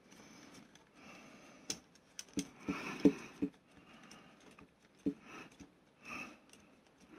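Handling noise from assembling a model kit: a few sharp clicks and soft scraping as a small screwdriver works at the parts. The loudest click comes about three seconds in.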